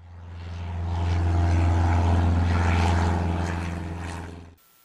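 Beechcraft Sundowner single-engine propeller plane flying past, its four-cylinder Lycoming engine and propeller making a steady low drone. The drone swells over the first second, holds, eases off a little and cuts off suddenly near the end.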